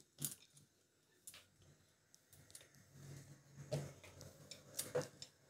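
Wooden rolling pin rolling out dough on a wooden board: a faint low rumble with scattered light knocks and clicks.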